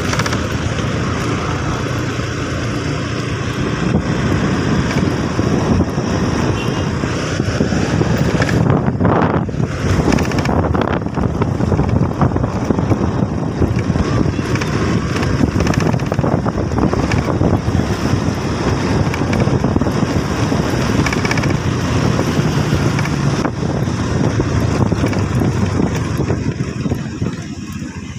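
Steady vehicle running noise with wind rushing over the microphone while travelling along a road.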